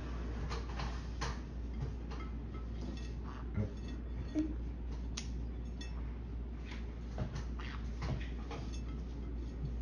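Light, irregular clicks and taps of a green-cheeked conure's beak against the rim of a ceramic plate of bath water, over a low steady hum.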